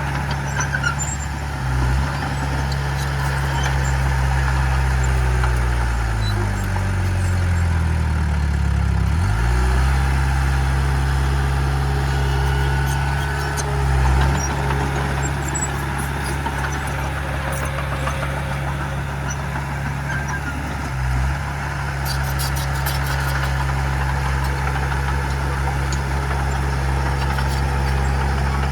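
Diesel engine of heavy earthmoving equipment running steadily. About six seconds in, its pitch drops and then climbs back, as under load or throttled down and up again. A few brief dips follow later, and there is some light clicking and clatter about three-quarters of the way through.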